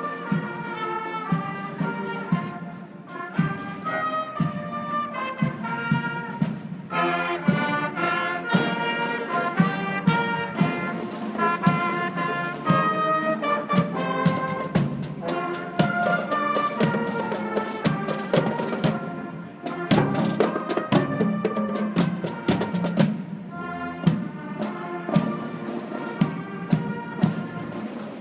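Cadet marching band playing live: trumpets, trombones, French horns, sousaphone and flutes carry the tune over snare and tenor drums keeping a steady marching beat.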